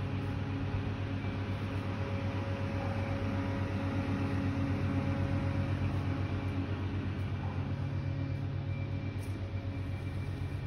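A steady low mechanical hum with a fast, even pulse.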